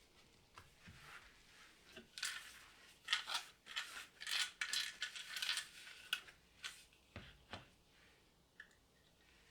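Small hard objects clinking and rattling as they are handled, in a quick run of light taps lasting a few seconds, followed by a couple of duller knocks.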